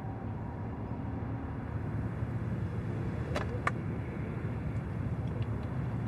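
Steady low road rumble inside a moving car's cabin, with two light clicks about three and a half seconds in.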